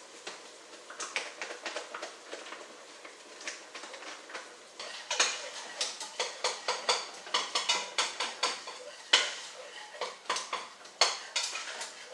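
Metal whisk stirring packet gravy mix into water in a saucepan, clinking and scraping against the pan in quick, uneven strokes. The strokes start about a second in and get faster and louder about halfway through.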